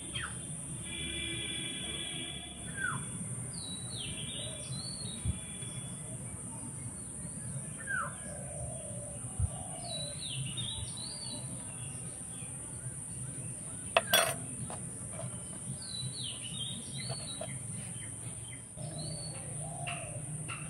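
Small birds chirping in scattered short phrases, with a steady high hiss throughout and one sharp click about two-thirds of the way through.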